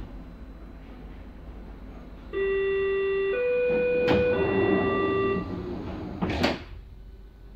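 Door-closing warning signal of a class 485 S-Bahn train (the "Coladose"): a beeping tone that steps low, high, then low again for about three seconds. Then the sliding doors shut with a loud thud about six seconds in.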